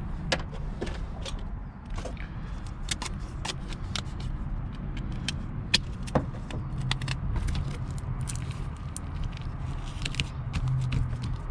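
Handling noise from hands working on loose insulation padding and Gorilla tape inside a car's interior: scattered crackles, clicks and light scrapes over a steady low rumble.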